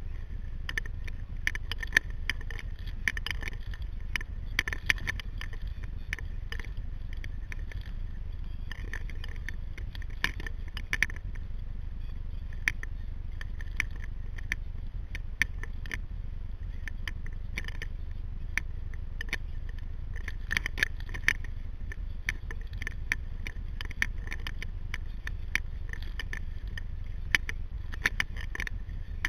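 Sea kayak out on the water: a steady low rumble with many small, irregular clicks and rattles, coming in clusters.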